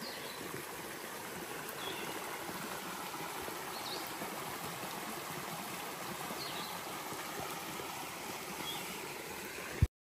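A small rocky creek running over little cascades, giving a steady rush of water, with a few faint short chirps above it. The sound cuts off suddenly just before the end.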